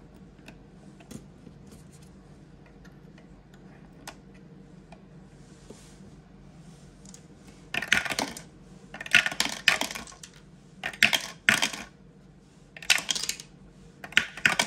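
Polyhedral dice clattering down through a hammer-shaped plastic dice tower and rattling into its tray, in about five bursts of hard clicks across the second half. Before that, only a few faint light clicks.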